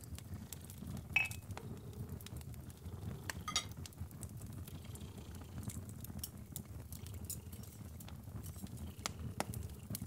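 Crackling fire over a low steady rumble, with crockery clinking twice, about a second in and again two seconds later, each clink ringing briefly.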